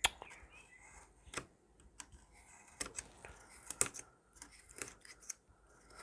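Craft knife blade drawn along a steel rule, cutting through black foam board: a string of short scratchy strokes and clicks at irregular intervals.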